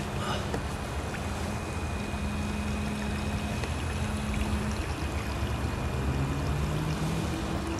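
Water Snake electric trolling motor running on slow speed, pushing a kayak along, with water rushing along the hull.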